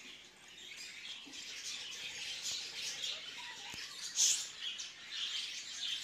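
A flock of caged budgerigars and cockatiels chirping and chattering, many high calls overlapping without a break.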